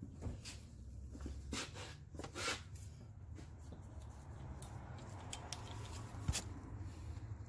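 Small metal clicks and scrapes of a valve-adjusting tool working a rocker arm's adjusting screw on a Honda/Acura 3.2L V6 valvetrain, over a low rumble. The sharpest click comes about six seconds in.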